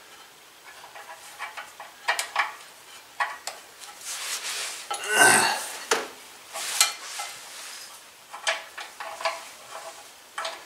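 Metal hand tools and engine parts clinking, tapping and scraping on a Husqvarna riding mower's engine as parts are worked on by hand, a scattered series of light metallic clinks and knocks, with one longer, louder noise about five seconds in.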